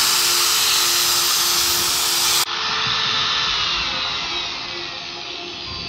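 Angle grinder motor running at full speed with no disc fitted. After an abrupt change about two and a half seconds in, it winds down with a slowly falling whine.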